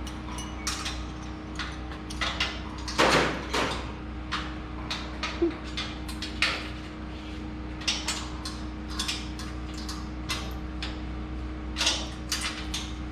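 Irregular metallic clanks and clicks of hand tools and parts as the crew works on bolts, with a louder cluster about three seconds in. A steady hum runs underneath.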